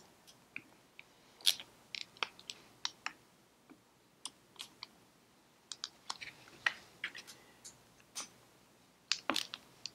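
Screwdriver turning and seating small steel cover screws in an S&S carburetor body: a string of irregular light metal clicks and scrapes, with a couple of short pauses between screws.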